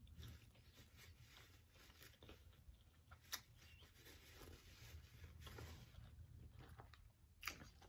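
Faint chewing and scattered mouth clicks of someone eating, with one sharper click a few seconds in, over a low steady hum.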